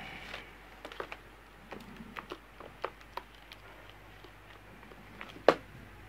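Irregular light clicks and taps of equipment being handled on a workbench, with one sharper, louder click about five and a half seconds in.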